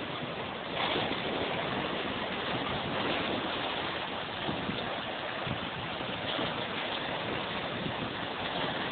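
Steady rushing noise of lake water, stepping up a little in level about a second in.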